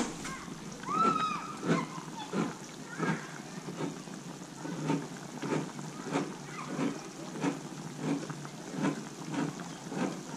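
Pozole boiling hard in an open cast-iron disc wok: the liquid bubbles and pops in a fairly even rhythm of about one and a half pops a second.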